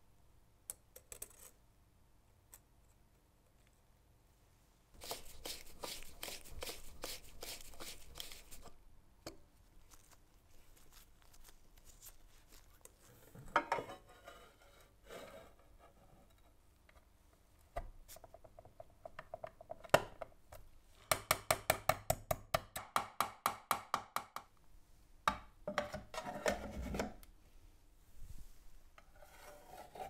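Gold-plated metal parts of a giant table lighter being handled and fitted together on a workbench, with rubbing, light knocks and clinks. Past the middle comes a quick, even run of sharp clicks, about four a second for a few seconds, which is the loudest part.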